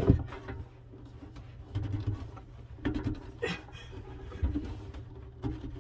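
Scattered small knocks, clicks and rustling of hands working on the faucet's under-sink mounting and hoses, as the faucet is hand-tightened down.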